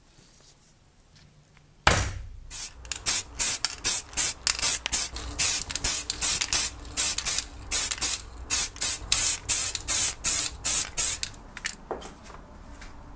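Paint being sprayed onto a small model car body in short, quick hissing bursts, about two to three a second. It starts abruptly about two seconds in and stops about a second before the end.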